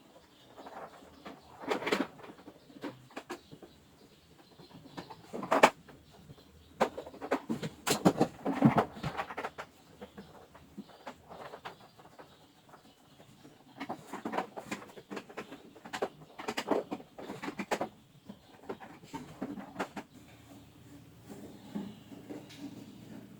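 Irregular clicks, knocks and rattles, like parts or tools being handled, with the loudest knocks about 5 and 8 seconds in.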